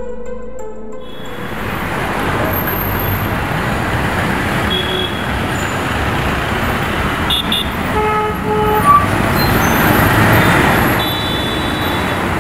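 Busy city street traffic: a steady rush of engines and road noise, with short vehicle horn toots here and there, the clearest about eight seconds in.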